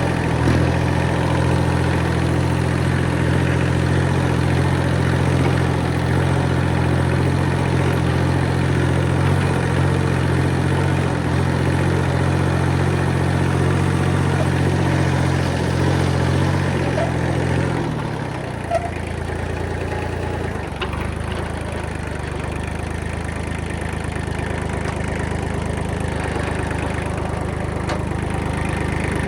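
Kubota machine's diesel engine running steadily, then settling to a lower, quieter running note about 18 seconds in.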